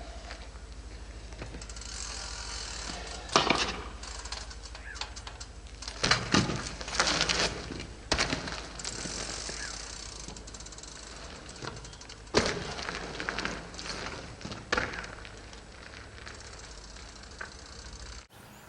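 Dirt-jump bike's rear hub ratcheting and the bike rattling, with several sharp knocks and clusters of clicks over a steady low buzz.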